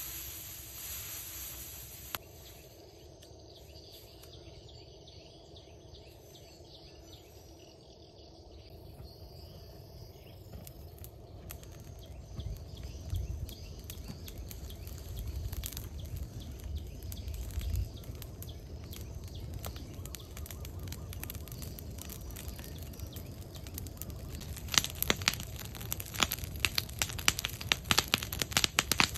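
Dry straw rustling as it is heaped, then the pile of dry straw burning: a low rush of flame builds from about ten seconds in, and sharp crackling and popping grows dense near the end.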